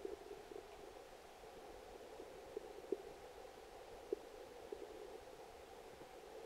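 Creek water heard faint and muffled through a submerged camera, a steady low murmur with scattered soft ticks, the clearest about 3 and 4 seconds in.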